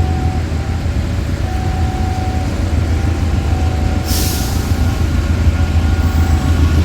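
GE diesel-electric locomotive's engine running loud and steady with a deep hum. A short burst of hiss comes about four seconds in.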